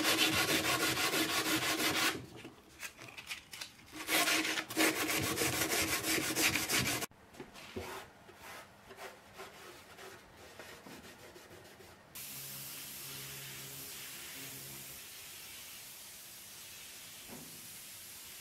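Loud rasping as excess fibreglass is ground off a repaired crack in a plastic car heater box, in two spells with a short pause between. Then quiet rubbing as a rag wipes it down. From about twelve seconds in, the steady hiss of a gravity-feed spray gun laying on clear coat.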